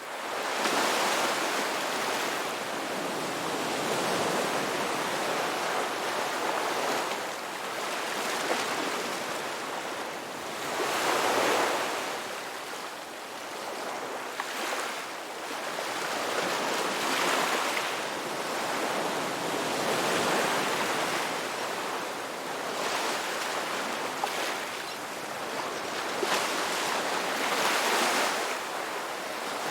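Ocean waves breaking on a beach: a continuous wash of surf that swells and eases every few seconds as each wave comes in.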